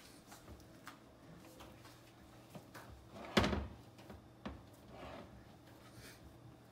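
One loud thunk about three and a half seconds in, over faint soft handling sounds as cookie dough is pressed by hand into a cast iron skillet.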